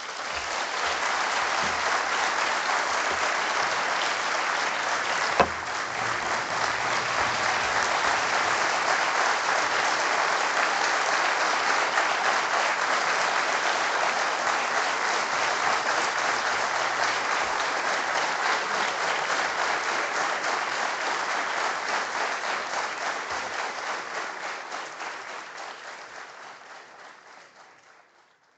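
Audience applauding steadily for about 25 seconds after a speech ends, then dying away over the last few seconds, with one sharp knock about five seconds in.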